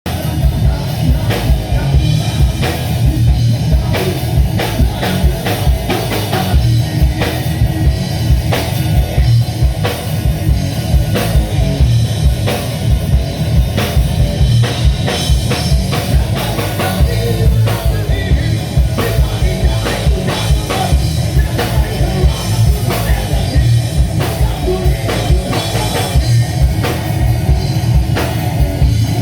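A band playing music at a sound check: a drum kit keeps a steady beat over a heavy bass, with guitar.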